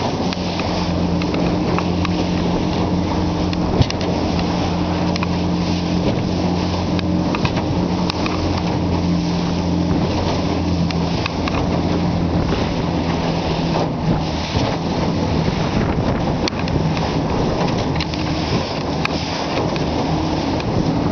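Fishing boat's engine running steadily under way, a low even hum, with wind on the microphone and water rushing past the bow. A brief knock about four seconds in.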